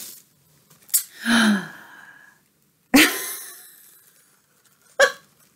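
A woman's short non-speech vocal sounds: a brief sound falling in pitch about a second in, a sharp burst about three seconds in that trails off, and another short burst near the end.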